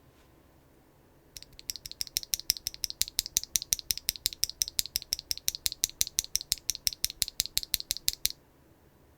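Typing on a mechanical keyboard with Keygeek Orange Boi linear switches, a carbon fiber plate and no foam: a fast, even run of high-pitched clacks, about six or seven keystrokes a second, starting a little over a second in and stopping shortly before the end.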